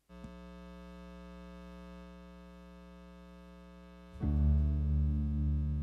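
Synthesizer opening a song: one sustained chord held steady, then a louder, fuller chord with deep bass comes in about four seconds in.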